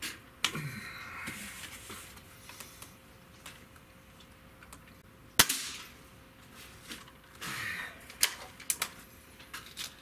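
Gamo Whisper Fusion Mach 1 .22 break-barrel air rifle with IGT gas piston, fired once about five seconds in: a single sharp shot with a short ring after it. Around it are the mechanical rasps and clatter of the barrel being worked, and light clicks near the end as the barrel is broken open to cock for the next shot.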